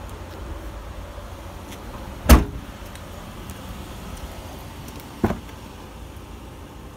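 A car's rear liftgate slammed shut with one loud bang about two seconds in, then a smaller clunk about three seconds later as a rear side door is unlatched and opened.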